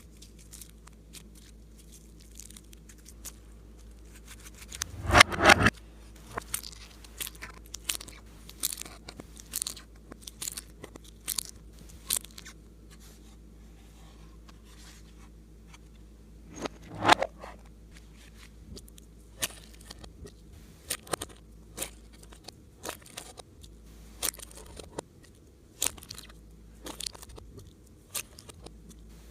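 Slime being kneaded and pressed by hand, giving many short sharp clicks and crackling pops, with two louder crunchy bursts about five and seventeen seconds in.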